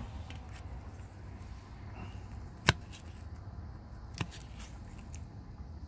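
Two sharp clicks of handling while eating, a louder one about two and a half seconds in and a fainter one about four seconds in, over a low steady background noise.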